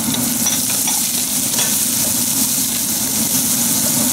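Diced bell peppers and celery sizzling in hot oil in a wok, stirred with a wooden spatula that scrapes and taps the pan a few times in the first couple of seconds. A steady low hum runs underneath.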